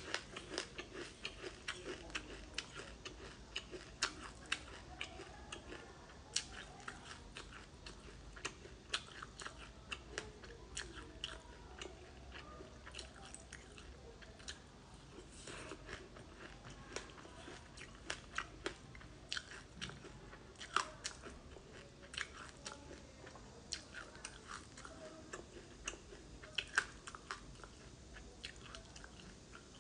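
Close-miked chewing of mouthfuls of black sesame seeds: a dense, irregular run of small sharp crunches and crackles, with a few louder crunches scattered through.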